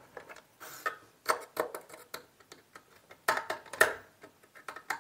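Irregular small clicks and knocks of a screwdriver and hands working the plastic terminal block of a single-phase energy meter as the input neutral wire is screwed in, with a few louder knocks about a second in and near the four-second mark.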